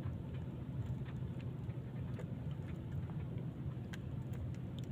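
Small fishing boat's engine idling as a steady low hum, with a few faint clicks over it.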